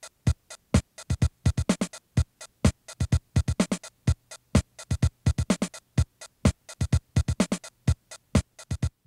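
Background electronic music with a quick, clicking drum-machine beat, several short hits a second.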